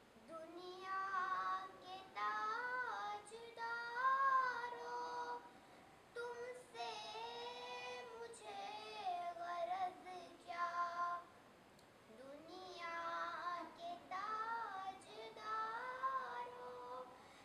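A young girl singing a naat, an Urdu devotional poem, solo and without instruments, in long melodic phrases with short pauses between lines.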